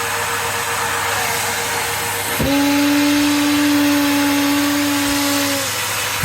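Numatic Henry vacuum cleaner running with a steady rush of air and a motor whine. About two and a half seconds in, a loud low steady hum sweeps up and joins it, holds for about three seconds, then stops.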